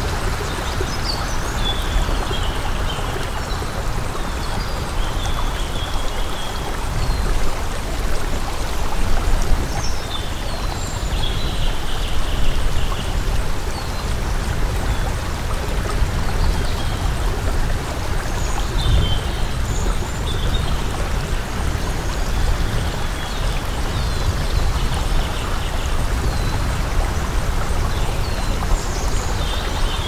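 Running water flowing steadily, like a stream, with small birds chirping in short high calls every few seconds.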